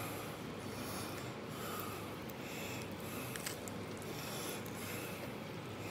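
Faint rubbing and squishing of raw pig intestine being pushed and slid along a scallion stalk by hand, with a few soft clicks.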